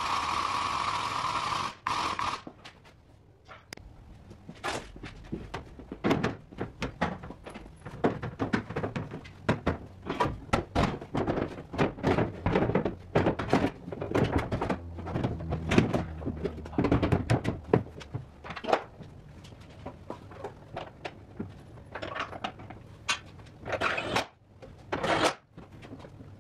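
A steady mechanical whirring for about two seconds, then many irregular knocks, clunks and rattles as a Ford F-150's aluminium door is handled and hung on its hinges, with a couple of short bursts from a cordless power tool near the end.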